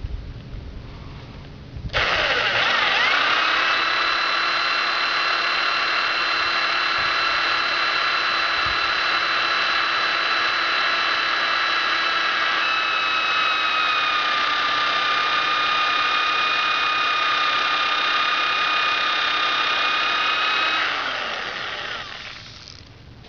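Corded electric drill starting up about two seconds in and running at steady full speed, spinning a 3/8-inch hardwood dowel spindle against a pine fireboard to build up charred dust for a friction-fire coal. A steady high whine that dips slightly in pitch about halfway, then winds down near the end.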